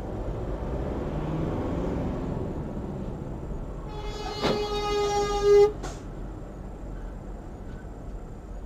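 Steady road and engine noise of a moving car, then about four and a half seconds in a vehicle horn sounds one blast of just over a second, loudest at its end, and cuts off suddenly.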